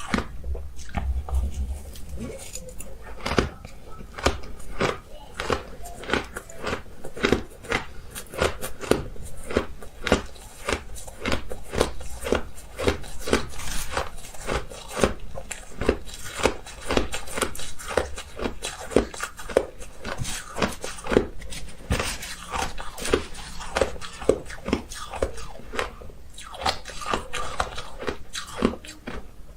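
Ice being bitten and chewed close to the microphone: a steady run of sharp crunches, a few a second.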